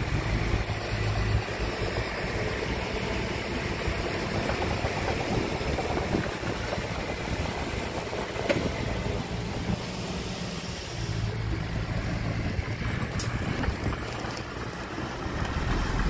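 Heavy diesel engine of earthmoving machinery running steadily, its low rumble swelling a little near the start and again about eleven seconds in, with a sharp knock about eight and a half seconds in.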